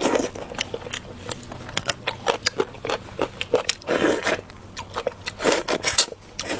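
Close-miked eating: biting and chewing food, with irregular crisp clicks and a few louder crunching bites near the start, about four seconds in and again about a second later.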